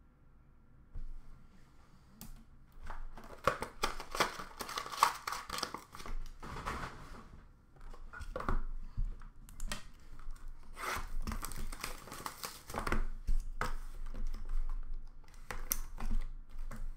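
Sealed cardboard hockey card boxes and their packaging being handled: irregular sliding, knocking and crinkling that starts about a second in.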